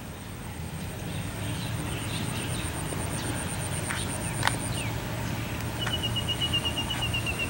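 Background ambience: a high, pulsing insect trill that stops about five seconds in, followed near the end by a quicker, lower trill. A few short chirps, a steady low hum and two light clicks about four seconds in are also heard.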